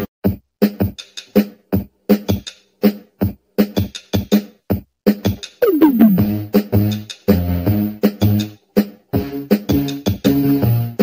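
Background music: short, choppy notes in a steady rhythm, with one falling pitch slide about six seconds in.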